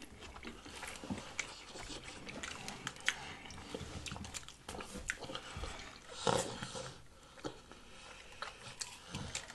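Close-miked wet chewing and lip smacking from eating pork carnitas tacos, with sips of water drawn through a straw. One louder mouth noise comes about six seconds in.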